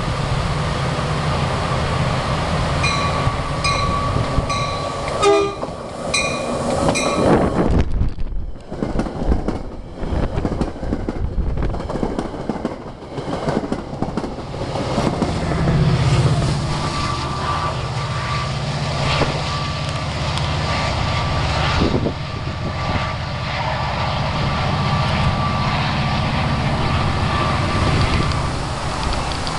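Metra commuter train passing close: the cars roll by with a dense rattle and clatter of wheels over the rails. Partway through, the diesel engine of the MP36PH-3S locomotive at the rear passes with a low, heavy rumble that swells. The locomotive's engine is a 16-cylinder EMD 645.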